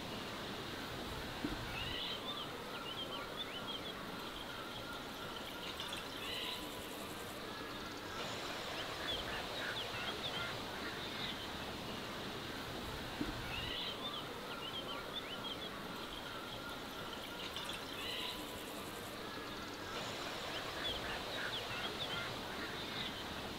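Outdoor ambience of small birds chirping in short bursts over a steady background hiss.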